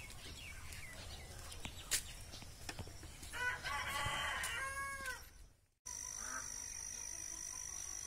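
A rooster crowing once, a long arching call about three and a half seconds in, over faint small-bird chirps. After a sudden cut near six seconds, a steady hiss with a thin high whine.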